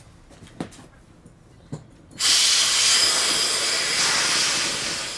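Air rushing out of an inflatable boat as it is let down: a loud, steady hiss that starts suddenly about two seconds in, after two faint knocks.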